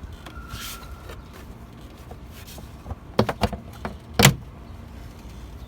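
Plastic engine cover being pulled off the engine: a quick cluster of clicks and knocks about three seconds in, then one loud knock a second later as it comes free.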